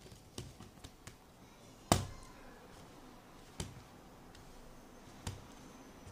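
Fluffy slime made with glue, detergent and shaving foam being squeezed and pressed in a bowl, giving a handful of sharp popping clicks, the loudest about two seconds in.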